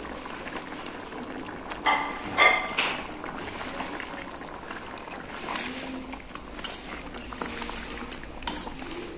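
A pot of pork and purslane stew in green salsa bubbling at a steady simmer, finishing cooking. A metal spoon clinks against the steel pot a few times.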